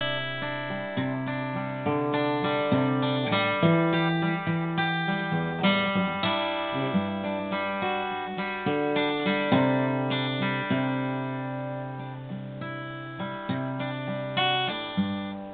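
Acoustic guitar being played: chords picked and left to ring, a new chord about every second.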